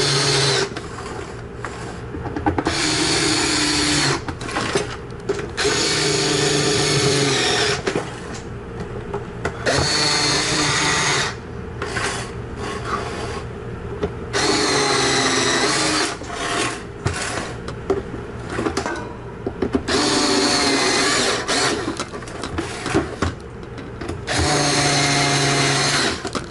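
Cordless power screwdriver driving screws into a plastic instrument-cluster cover: about eight short runs of motor whine, each one to two seconds, some rising in pitch as they start, with small clicks and handling sounds between runs as each screw is set.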